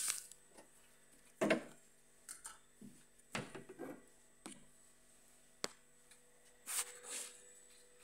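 Metal paint tins and their lids being handled on a workbench: scattered knocks, clicks and short scraping or rustling sounds, the loudest about a second and a half in and a couple more near the end.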